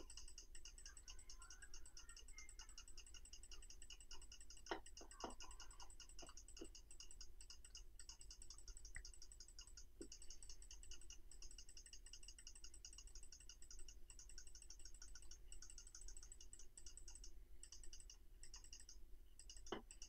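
Near silence: faint room tone with a rapid, even, high-pitched ticking in the background and a few faint clicks about five and ten seconds in.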